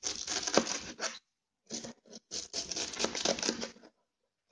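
Kitchen knife shredding a head of white cabbage: crisp crunching of the leaves under rapid cutting strokes against the board. It comes in two runs, the second starting a little over two seconds in.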